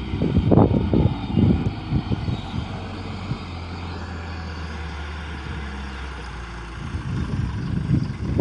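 JCB telehandler's diesel engine running steadily as the machine drives across the field carrying a round bale, with gusts of wind buffeting the microphone in the first couple of seconds and again near the end.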